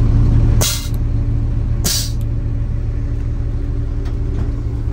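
Truck diesel engine idling steadily, heard from inside the cab, with two short hisses of air about a second apart near the start as the pneumatic push-pull control knobs for the vacuum truck's blower and hydraulic/water pump are worked.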